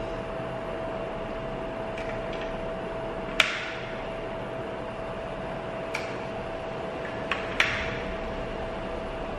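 Cooling fan of an LED wash moving head light running steadily, a constant whirring with a steady hum; the fan is not really quiet. Four sharp clicks break in, the loudest about three and a half seconds in and the last two close together near the end.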